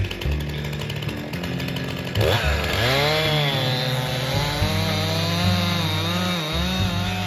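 Stihl chainsaw revving up about two seconds in and then running under load, its pitch rising and dipping as it cuts into a tree, over background music with steady low notes.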